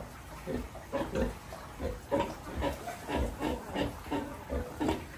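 Domestic pigs grunting in a rhythmic run of short grunts, roughly two a second.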